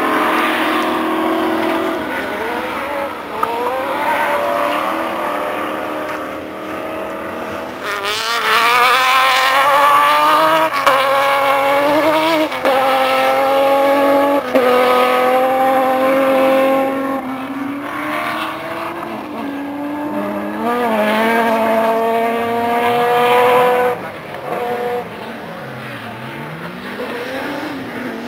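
Rally car engines on a gravel stage accelerating hard, the pitch climbing and then dropping at each gear change, several times over. The engines are loudest through the middle and fall back near the end.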